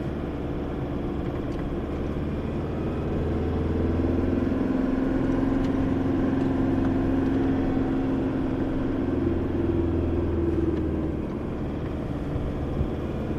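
Four-wheel-drive vehicle driving along a track, its engine running steadily under tyre and road noise. It grows a little louder about four seconds in and eases back near the end.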